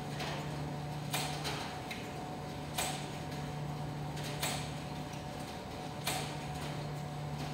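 ADC commercial tumble dryers running with a steady low hum, and a sharp knock repeating evenly about every second and a half.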